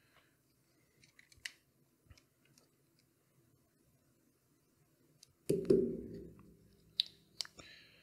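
Small clicks and handling noises from a slipjoint pocket knife being tightened and put back together. There is a louder thump about five and a half seconds in, then two sharp clicks near the end.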